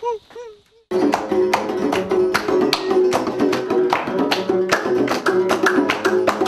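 Amazigh folk ensemble of plucked lutes and a hand frame drum, starting about a second in: steady plucked string figures over regular drum strokes. It is preceded by a few short rising-and-falling calls.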